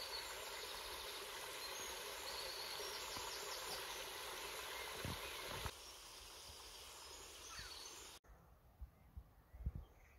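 Water spilling over a small canal weir, a steady rushing hiss with a few faint bird chirps. About six seconds in it cuts to a quieter outdoor hush, and after eight seconds to near silence with a few soft knocks.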